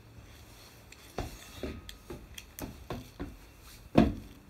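A string of light clicks and knocks from the scoped .22 rifle being handled, then a much louder knock about four seconds in that jolts the rifle.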